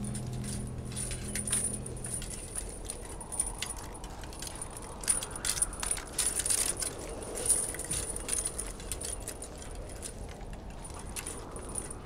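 Metal clinking and jangling, a run of sharp clicks that is densest about five to eight seconds in. A held low music chord fades out in the first two seconds.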